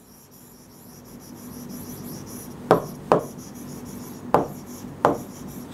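Marker pen writing on a whiteboard, with four sharp strokes in the second half over a faint steady hum.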